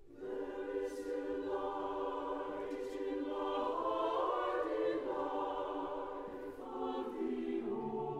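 Mixed choir singing long held chords. It comes in suddenly out of a hush and shifts chord a few times.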